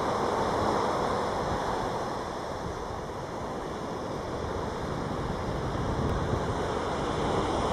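Steady wind and surf noise, with wind rumbling on the microphone.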